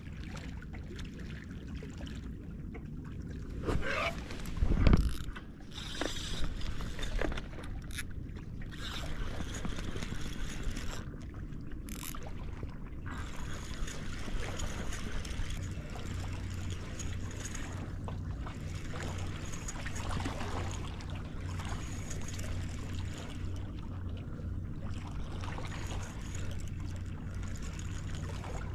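Spinning reel being cranked to bring in a hooked fish, its gears whirring steadily through the second half. A few loud knocks and thumps from handling the rod come a few seconds in.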